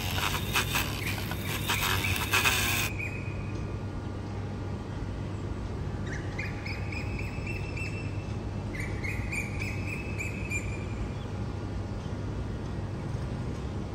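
Small birds chirping in short runs of quick high notes, twice in the middle, over a steady low hum. A few knocks and rustles come in the first few seconds.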